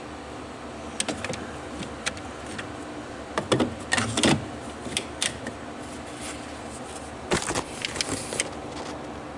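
Hand work on a hydraulic spool valve: scattered small metal clicks and knocks, with two louder spells of rattling and scraping, around four seconds in and again near the end, as parts and tools are handled.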